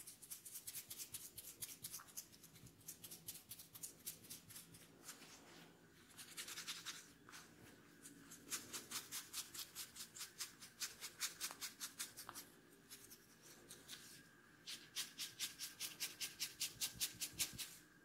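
Fingertips rubbing quickly over the ear and hair in a hand massage, a rapid scratchy rustle of about five strokes a second, coming in runs with brief pauses. A faint steady high tone sits under the second half.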